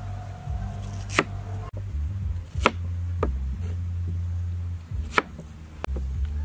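Cleaver chopping through raw purple yam onto a round wooden chopping board: about five sharp, irregularly spaced knocks.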